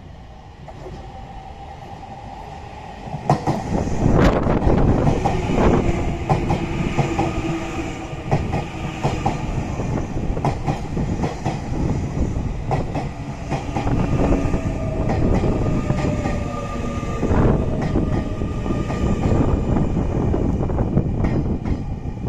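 Nankai 9000 series electric train running past at close range, loud from about three seconds in, with wheels clacking over rail joints and whining tones. The sound eases near the end as the last car goes by.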